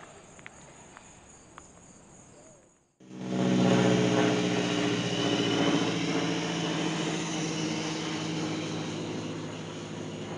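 Airplane engine drone as the plane flies over. It comes in abruptly about three seconds in, is loudest right away, and slowly fades, keeping a steady low pitch.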